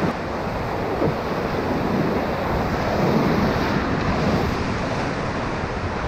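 Whitewater rapids rushing around an inflatable raft: a steady, loud noise of churning river water close to the boat.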